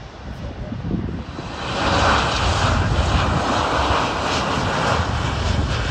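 Jet airliner passing close on its landing approach: the engine noise swells about a second and a half in, holds loud and steady, and falls away near the end.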